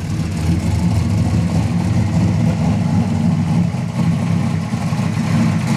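A vehicle engine running with a low, uneven note. It gets louder about half a second in, then holds steady.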